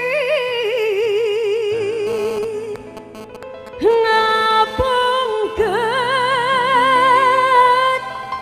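A woman singing Sundanese pop live over a keyboard backing, holding long notes with a wide, wavering vibrato. About three seconds in she drops away briefly, then comes back in on a new note and holds another long wavering one.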